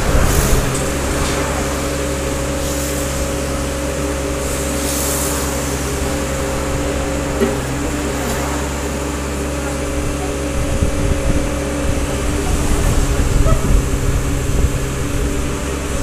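Komatsu PC30-3 mini excavator's three-cylinder diesel engine running steadily as the boom and arm are worked hydraulically. It gets louder about ten seconds in.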